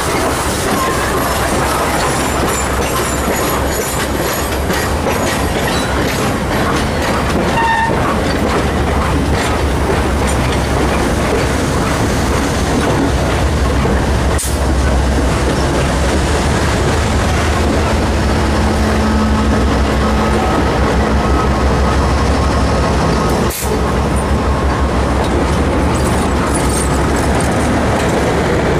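Passenger train rolling past at close range: a steady rumble of steel wheels on the rails with clickety-clack over the rail joints. A low drone strengthens about halfway through as a diesel locomotive in the consist goes by.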